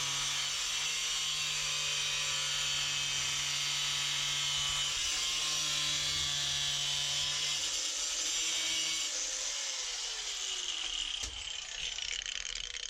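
Angle grinder cutting through metal, its motor whining steadily with a harsh high hiss; about nine seconds in it is switched off and the whine falls away as the disc spins down.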